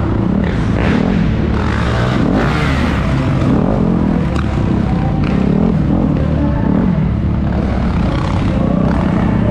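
Dirt bike engine heard from on board, its pitch rising and falling again and again as the throttle is opened and shut while racing around a dirt track.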